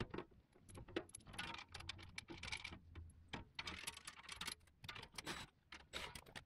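Faint metallic clinks, taps and short scrapes as a skid plate is shifted into position under a Jeep and its bolts are set loosely in place.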